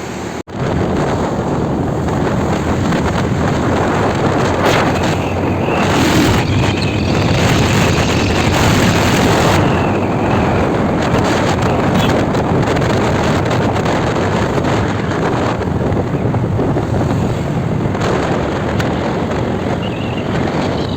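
Wind rushing over the microphone on a moving motorcycle, mixed with engine and road noise. The sound drops out briefly about half a second in.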